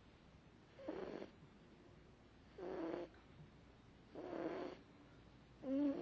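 French bulldog snoring in its sleep: four short, pitched snores, about one every one and a half seconds, the last the loudest.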